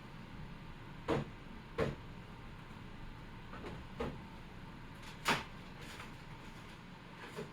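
Wooden box being pried apart by hand: four sharp knocks and cracks of wood, the loudest a little past five seconds in, and a faint one near the end.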